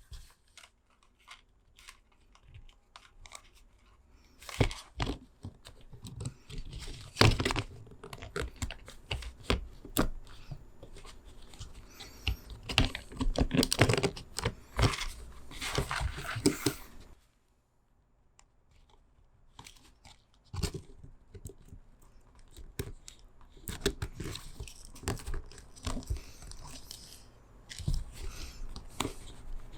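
Hands handling and fitting small parts: irregular clicks and knocks mixed with rasping, tearing-like scrapes and rustling. The activity stops briefly about two-thirds of the way through, then resumes.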